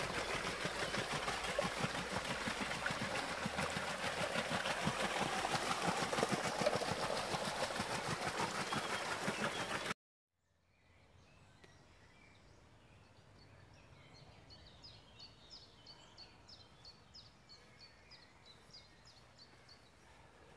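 Water splashing and rushing steadily through a small water wheel in a stream. About halfway it cuts off abruptly to quiet woodland, where a bird sings a rapid series of high repeated notes.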